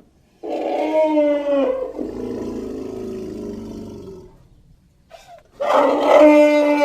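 Elephant calling: a loud, pitched trumpet-like call about half a second in, trailing into a lower, rougher sound for about two seconds, then after a pause a second loud call near the end.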